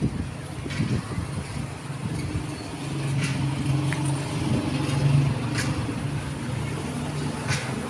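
A motor vehicle engine running steadily nearby, a little louder from about three seconds in, with a few faint clicks.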